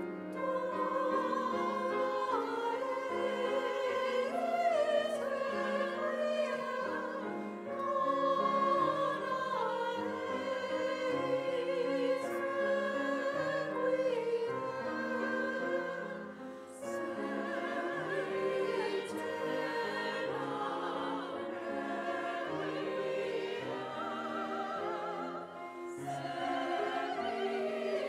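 Women's choir singing in several parts, with vibrato in the voices, accompanied by piano.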